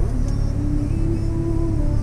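Background music with a slow, stepwise melody over the steady low rumble of a car heard from inside its cabin.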